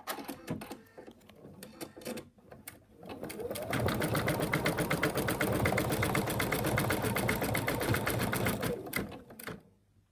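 Embroidery machine stitching at a steady rapid rate for about six seconds, then stopping, as it stitches the arm piece down in the hoop. Before it starts, a few light clicks and knocks.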